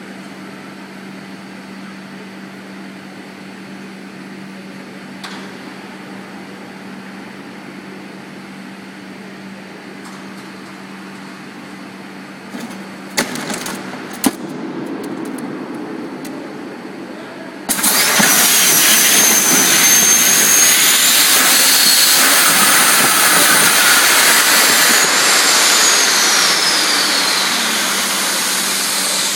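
Boeing 747-400ERF upper deck escape slide deploying: a few sharp knocks as the hatch and slide pack release, then a few seconds later a sudden loud rush of hissing air with whistling tones that rise and then fall as the slide inflates. The hiss eases off near the end as the slide reaches full inflation. Beneath it runs a steady low hum.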